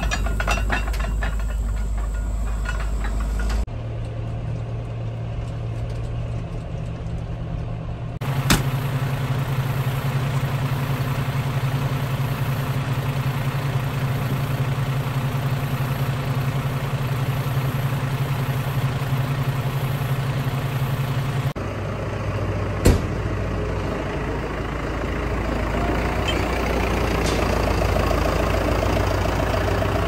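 John Deere diesel tractor engines running steadily, heard across several short clips; the engine note jumps to a different pitch at each cut. A couple of sharp knocks stand out.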